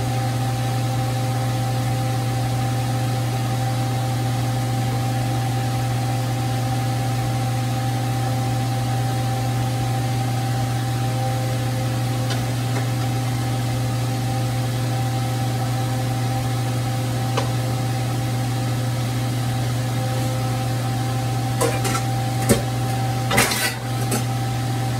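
Steady hum of a kitchen appliance's electric motor, holding one even pitch throughout. Near the end a few knocks and clatters of cookware as the emptied wok is moved off the stove.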